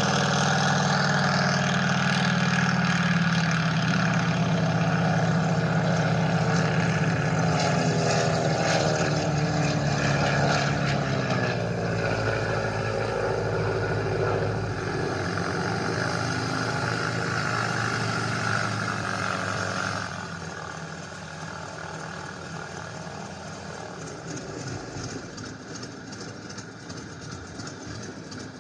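Stearman biplane radial engine sound running at high power, its pitch gliding down about ten seconds in as the power comes back, then dropping noticeably quieter about twenty seconds in and running on at a lower setting.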